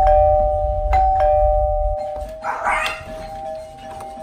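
Doorbell chime ringing ding-dong, a higher note then a lower one, pressed twice in quick succession and then ringing out. A short noise comes about two and a half seconds in.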